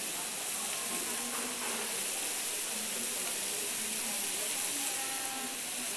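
Tteokgalbi beef patties sizzling in hot grease on a flat-top griddle: a steady frying hiss.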